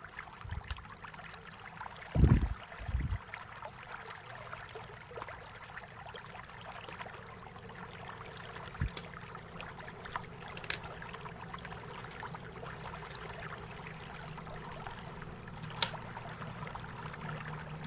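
Small screwdriver backing out the battery screws inside an opened laptop: two dull thumps about two and three seconds in, then a few light clicks, over a steady hiss.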